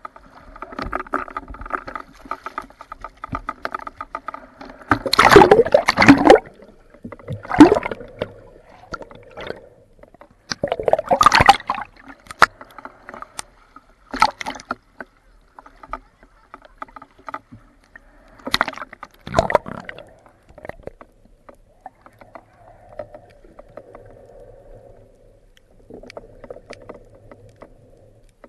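Sea water splashing and sloshing around a waterproof action camera as it dips in and out of the surface with a swimmer's strokes, with several loud splashes about five, eight, eleven, fourteen and nineteen seconds in. A steady hum sits underneath in the first few seconds.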